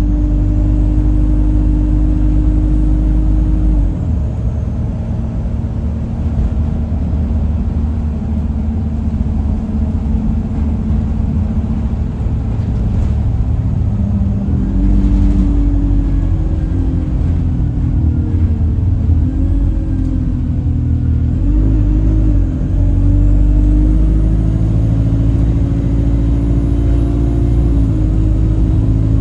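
Alexander Dennis Enviro 200 bus running, with a horn-like droning tone over the engine rumble that drops out a few seconds in, returns about halfway through, wavers up and down, then holds steady. The uploader suspects the noise comes from the gearbox; the bus also feels sluggish.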